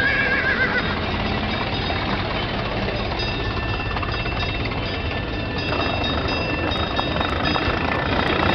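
Recreated horse-era street sound: horse hooves clip-clopping over a steady low rumble of street traffic. A horse whinnies briefly at the start.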